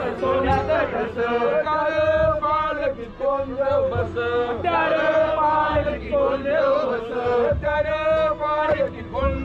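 Men's voices chanting together in a sung chant, several voices overlapping and held on long notes.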